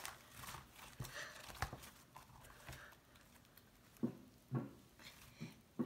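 Butter slime being worked and stretched by hand: soft sticky crackling, then a few short squelching pops from about four seconds in as the sheet is pulled up off the table.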